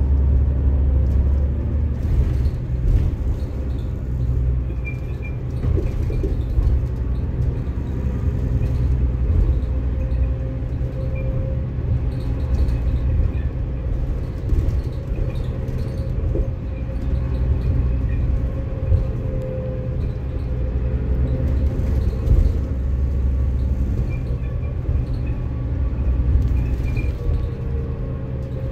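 Cabin sound of a 2005 New Flyer DE40LF diesel-electric hybrid bus driving: a steady low rumble from the drivetrain and road, with a whine that rises and falls slightly and occasional rattles.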